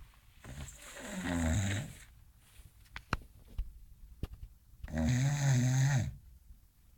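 English Bulldog snoring in its sleep: two loud snores about four seconds apart, each lasting over a second, with a few small clicks between them.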